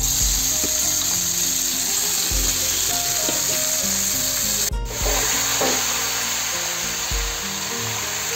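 Raw chicken pieces sizzling loudly in hot oil and fried onions in a kadai, the hiss breaking off briefly a little past halfway, over background music.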